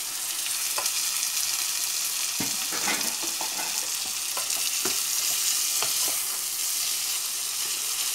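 Diced tilapia frying and sizzling steadily in a pot with onion, garlic and tomato. A wooden spoon stirs it, with a few short knocks and scrapes against the pot.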